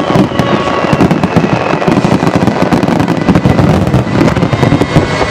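Star mine firework display: a dense barrage of aerial shells bursting in quick succession, with overlapping bangs and crackling.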